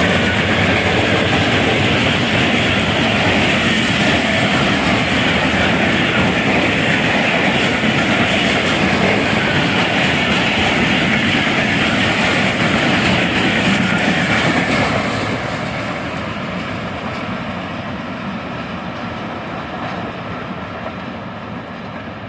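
Diesel-hauled express passenger train running through at speed: its coaches pass loudly and steadily along the rails. From about fifteen seconds in the sound fades as the train draws away.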